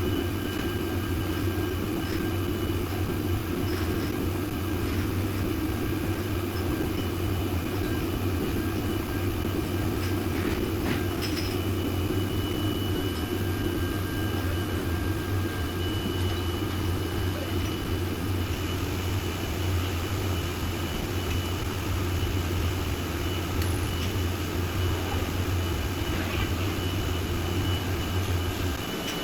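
Jam-production machinery running steadily: a constant low machine hum with faint steady high whines over it. The low hum cuts off near the end.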